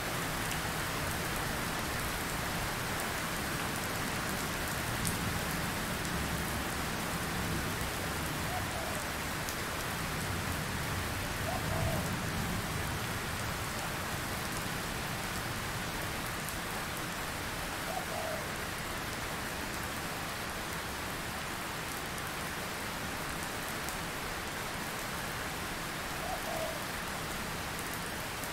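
Steady rain falling, an even continuous hiss, with a few faint short chirps now and then.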